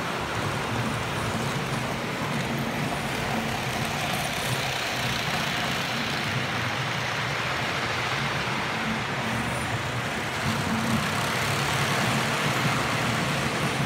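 HO-scale model train running on the layout: the steady running noise of its wheels on the rails and its small electric motor, a little louder near the end.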